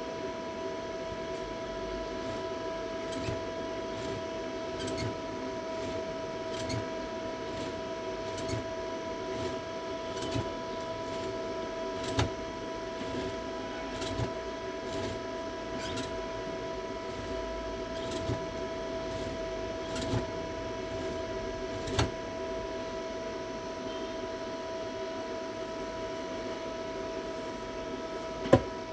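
Steady electrical hum with a whine on one pitch, with faint clicks about every two seconds and one sharper click near the end.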